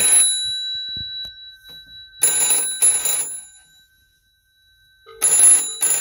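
Rotary-dial telephone's bells ringing in the double-ring pattern: two short rings close together, a pause of about two seconds, then the next pair starting near the end, with the bell tones hanging on between rings.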